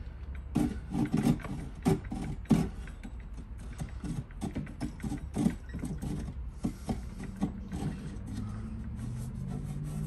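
A small hand tool scraping and twisting in the drilled cam-lock hole of a prefab cabinet panel, in short irregular strokes that are heaviest in the first few seconds and lighter after, to deepen a chamfer that was too shallow.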